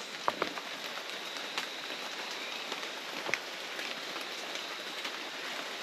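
Small rainforest stream trickling: a steady watery hiss with a few faint clicks scattered through it.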